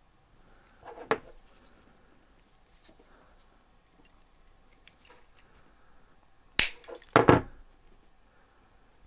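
A few sharp knocks and clacks of things being handled and set down on a workbench: a lighter one about a second in, then two loud ones in quick succession about two-thirds through, with a quiet room between.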